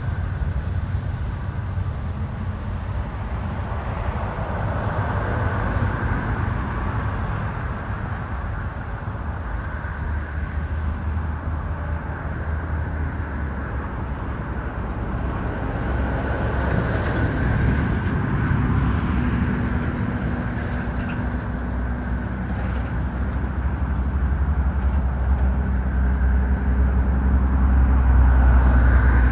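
Jet engines of a Boeing 787-8 airliner running, a steady low rumble with a faint high whine, growing louder near the end.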